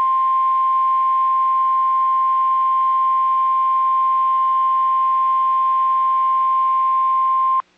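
NOAA Weather Radio 1050 Hz warning alarm tone: one loud, steady, unwavering tone that cuts off suddenly near the end, signalling that a tornado warning follows.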